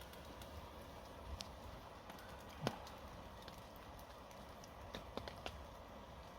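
Wood campfire crackling over a low steady hiss, with a few sharp, irregularly spaced pops.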